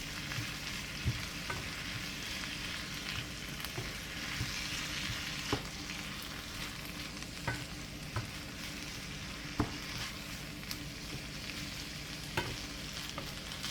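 Spaghetti and vegetables sizzling in an oiled frying pan while being stirred, with a few sharp clicks of the stirring utensil against the pan.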